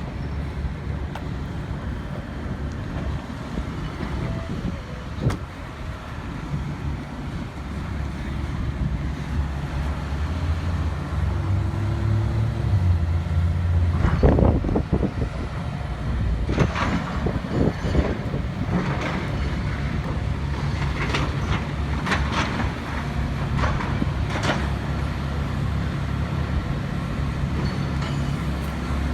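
City street traffic: vehicle engines and tyres running past, with one vehicle passing louder about halfway through. A series of short knocks follows over the next several seconds.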